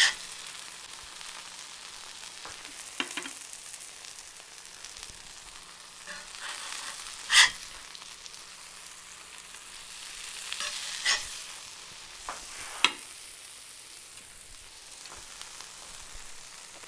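Burger food sizzling on a hot Weber charcoal grill, a steady hiss, broken by several sharp clacks, the loudest a little before the middle.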